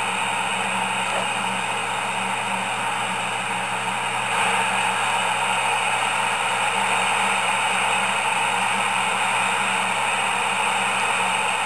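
Midland 77-285 CB radio's speaker hissing with steady receiver static, with a faint low hum underneath, no voice on the channel; the hiss steps up slightly about four seconds in.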